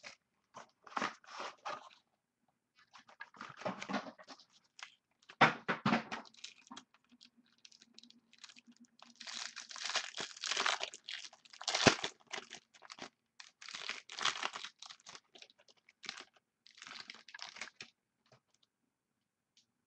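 Plastic wrapping on a sealed trading-card box crinkling and tearing as it is opened by hand, in irregular bursts.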